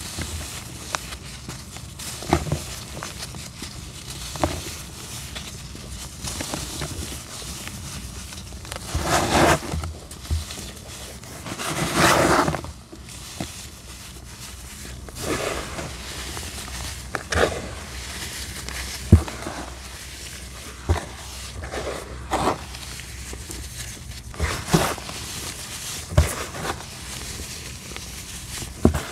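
Dry black sand being crushed and crumbled by gloved hands: irregular soft crunches and short thuds as the pressed chunks break, with the hiss of fine powder sifting and pouring through the fingers. The longest pours come about nine and twelve seconds in.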